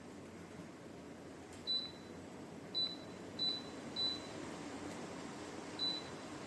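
Dreo Cruiser Pro tower fan running with a steady airflow hiss, and five short high beeps from its controls, the middle three close together.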